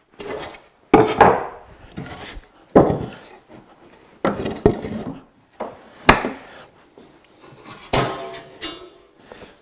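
Pine and white oak boards being handled and set down on a wooden workbench: a series of wooden knocks and clunks about every second or two, with some rubbing between. Near the end the steel handsaw is lifted off the bench with a brief ringing.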